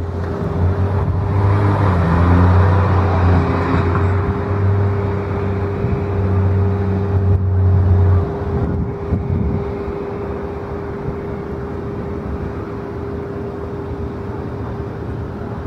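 Airport apron machinery running: a steady hum with one constant tone holds throughout, over a low engine rumble that stops about eight seconds in.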